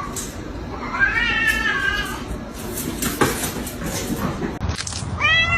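Domestic cat meowing unhappily: one drawn-out, rising-then-falling meow about a second in and another starting near the end, with a short knock in between.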